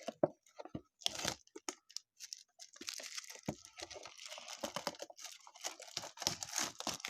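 Packaging being torn and crinkled as a box of trading cards is ripped open, preceded by a few handling clicks and taps in the first couple of seconds.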